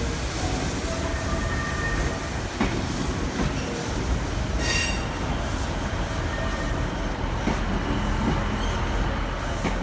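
A train rolling past on the rails: steady wheel and running noise, with short high squeals from the wheels, the sharpest about five seconds in.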